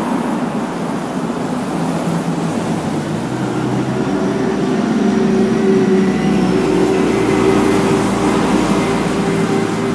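Street traffic on a wide city road: a steady noise of cars passing, joined about three and a half seconds in by the low, steady engine drone of a heavy vehicle that lasts to the end.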